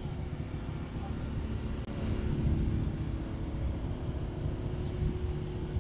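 An engine running steadily in the background, a constant hum under a low, uneven rumble.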